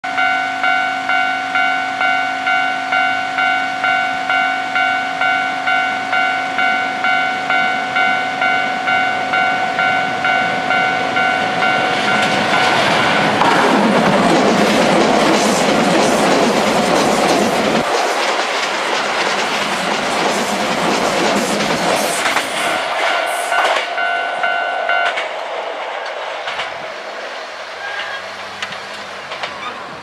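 Japanese level-crossing warning bell ringing steadily about twice a second. Then a Keisei AE-series Skyliner eight-car electric limited express passes at speed with a loud rush of wheels and air over the bell. The bell stops near the end and the train noise fades as it moves away.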